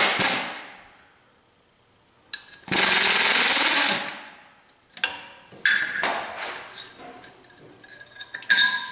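A handheld power tool running on engine fasteners: a first run dies away at the start, and a second steady run lasts over a second. After it come several light metal clinks of tools and parts.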